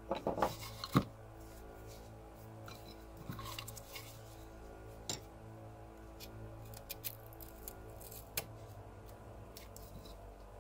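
Hand gouge cutting into cottonwood bark: short scraping cuts and sharp clicks, thickest in a burst during the first second, then scattered single cuts, over a steady low drone.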